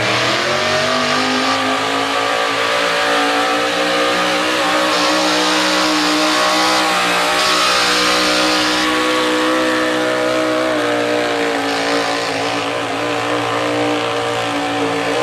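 A 4x4 pickup truck's engine running at full throttle while it drags a weight-transfer pulling sled. It revs up in the first second, holds at high revs with small rises and dips for the rest of the pull, and cuts off abruptly at the end.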